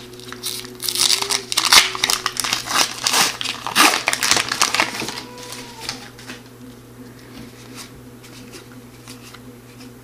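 Wrapper of a 2015-16 O-Pee-Chee hockey card pack being torn open, crinkling for about five seconds. Quieter handling of the card stack follows.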